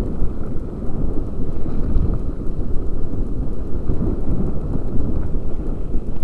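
Wind buffeting the microphone of a helmet-mounted camera during a fast mountain-bike descent on a dirt trail: a loud, steady low rumble with small knocks and rattles from the bouncing ride.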